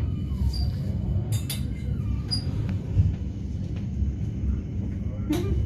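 Steady low rumble of a Rhaetian Railway Bernina Express coach running along the track, heard from inside the carriage, with a few sharp clicks about a second and a half in and again near the end.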